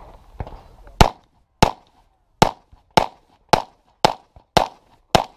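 Semi-automatic pistol fired in a rapid string: eight sharp shots about half a second apart, with a weaker shot about half a second in, then firing stops near the end.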